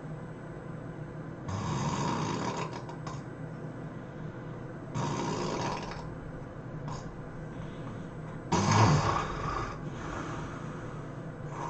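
A sleeping person snoring heavily: three loud snores about three and a half seconds apart, the third the loudest.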